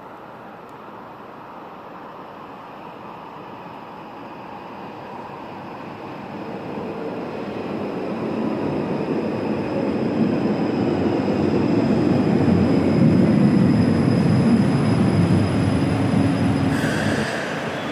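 A Stuttgart Stadtbahn light-rail train running on the tracks, its rumble growing steadily louder over about twelve seconds, with a faint high whine above it. The sound then drops off sharply near the end.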